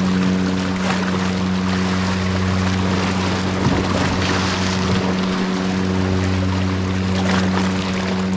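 Small waves washing against the rocks at the water's edge, over a steady low hum.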